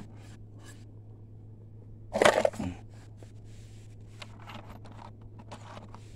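Handling noise from the camera moving against cloth: faint rustling and light ticks, with one louder rustle about two seconds in.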